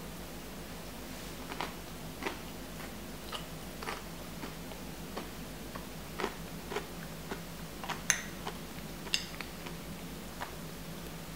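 Small metal spoon cracking the caramelized sugar crust of a crème brûlée and clinking against the ceramic ramekin as it scoops the custard: irregular light clicks and taps, with two sharper clinks near the end.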